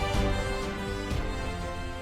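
Instrumental background music with steady sustained notes and a soft beat about once a second, fading slightly.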